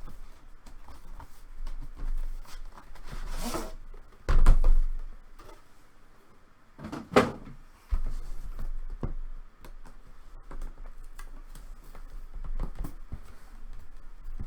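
Handling noises from trading-card packaging: a rustle, two heavier knocks about three seconds apart, then a run of light clicks and taps.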